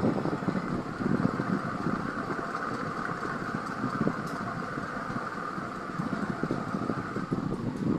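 KDK ceiling fan running: a steady whir with gusty rumble from its airflow buffeting the microphone. The whir fades out near the end.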